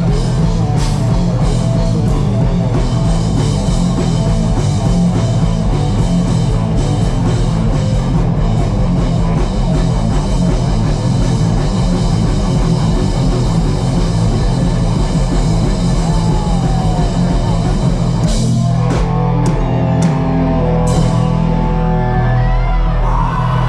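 Rock band playing live with electric guitars and a drum kit, heard from within the audience. About eighteen seconds in the dense sound thins out, with a few single hits after it.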